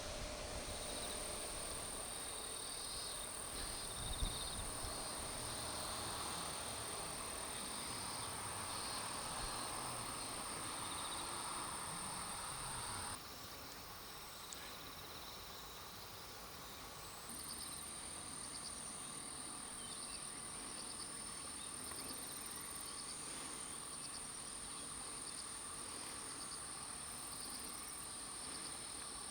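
Field insects such as crickets singing: a continuous high-pitched trill, with another insect chirping in rapid pulses a little lower. The trill cuts off suddenly about halfway and comes back a few seconds later.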